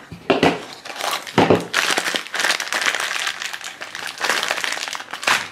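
Cardboard blind box opened and the figure's plastic wrapper handled and crinkled: a few sharp clicks, then dense crinkling and rustling until near the end.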